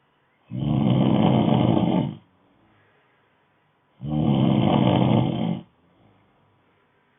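Snoring in a regular rhythm: two loud, low snores about three and a half seconds apart, each lasting under two seconds and followed by a faint breath.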